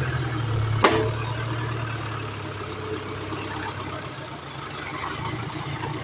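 Heavy machine engine running steadily, louder for the first second or so and then easing down, with one sharp knock about a second in.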